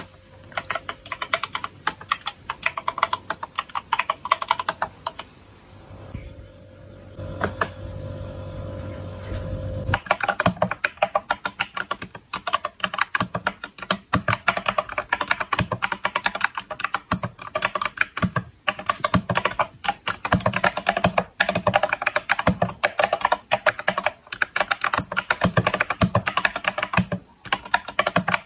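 Typing on a Lofree 1% mechanical keyboard: a steady stream of rapid key clicks. There is a brief pause about six seconds in, and the typing turns faster and denser from about ten seconds in.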